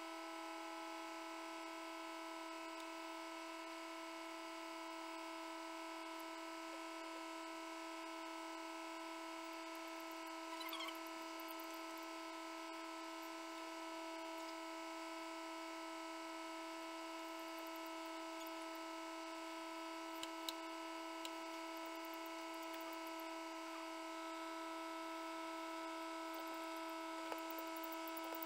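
Egg incubator's fan motor running with a steady electric hum. A few faint clicks are heard over it.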